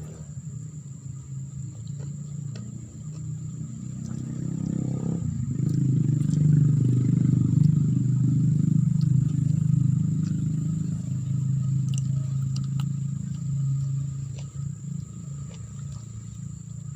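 A motor engine running with a low, steady hum, growing louder to a peak about six to nine seconds in and then fading back.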